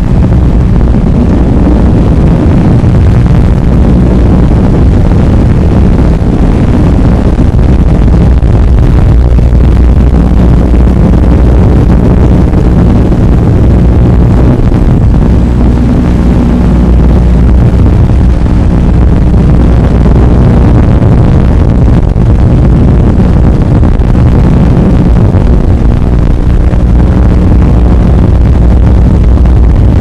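FPV racing quadcopter's motors and propellers, heard loud and distorted through an onboard microphone, with the pitch rising and falling as the throttle changes in flight.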